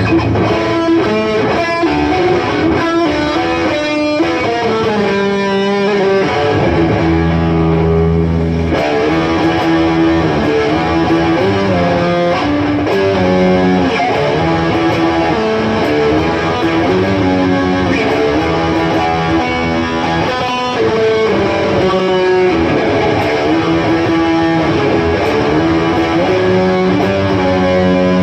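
Guitar playing: a continuous run of plucked notes and strummed chords, changing pitch throughout.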